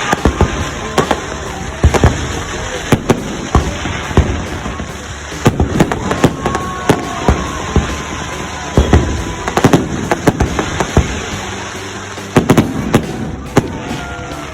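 Fireworks display: many loud, sharp bangs at irregular intervals, often in quick clusters, over a continuous background of smaller pops and rumble.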